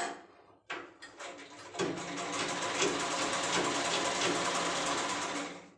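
Black hand-turned sewing machine stitching: a short rattle about a second in, then a steady, fast mechanical clatter of the needle and feed mechanism from about two seconds in that stops just before the end.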